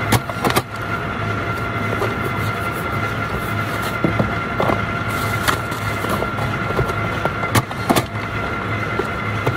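Steady drone of warehouse conveyors and machinery with a constant high whine, broken by a few sharp clicks and knocks as items are packed into a cardboard box.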